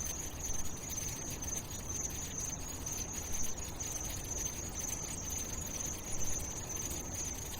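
Steady ambient background hiss with a continuous high-pitched, insect-like whine or chirring band and no music.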